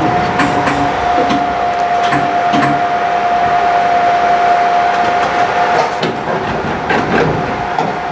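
Cab of a Kintetsu Utsube Line narrow-gauge electric train standing at a station: a steady high whine from the train's onboard equipment, with scattered clicks and knocks. The whine fades about six seconds in and comes back near the end.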